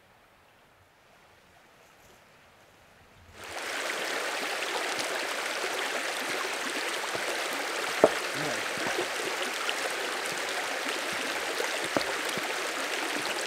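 Near silence for about three seconds, then a fell stream's rushing water cuts in suddenly and runs on steadily. Two sharp knocks stand out over it, a loud one about eight seconds in and a smaller one about twelve seconds in.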